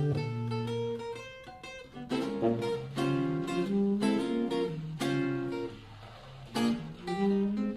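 Archtop acoustic guitar playing jazz, a mix of single-note lines and struck chords, with a chord stroke about once a second from about two seconds in.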